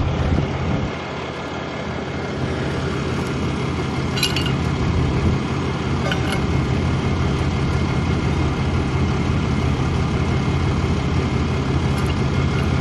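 A vehicle engine idling steadily, with a couple of short metal clinks about four and six seconds in from a pipe wrench working on a trailer hitch ball mount.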